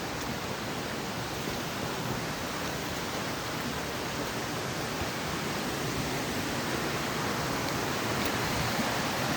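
Steady rushing water of a waterfall, slowly getting louder.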